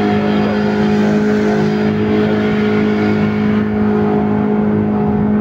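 Speedboat engine running steadily at speed, a continuous hum at an unchanging pitch.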